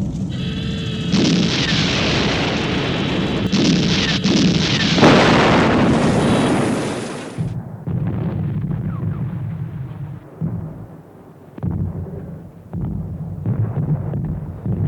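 Library explosion sound effects: a pitched tone cuts off about a second in, then a run of large blasts lasting several seconds that ends abruptly in a hiss, followed by a lower rumble with scattered crackles and debris impacts.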